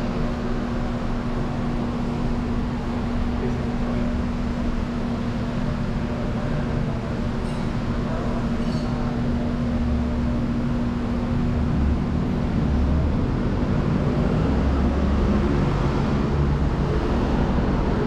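Steady mechanical hum with a low rumble underneath. A steady drone in it fades out about twelve seconds in, and the rumble grows a little louder toward the end.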